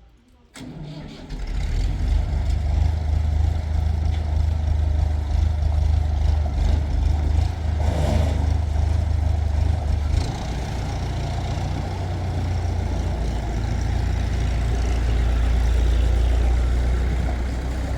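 A motor vehicle's engine starts about half a second in and runs steadily with a deep rumble, its note dropping slightly about ten seconds in.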